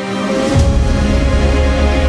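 Background music with sustained tones; about half a second in, a deep bass enters together with a brief cymbal-like wash and the music becomes fuller.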